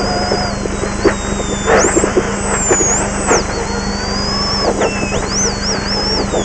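Rally car engine at speed on a dirt stage, heard from inside the cabin, downshifting from fourth to second gear. A high whine slides up and down in pitch throughout, and a few sharp knocks come from the rough road.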